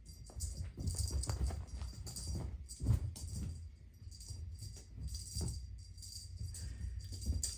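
A cat's toy rattling and jingling in irregular bursts as it is batted about, with dull thumps, the loudest about three seconds in.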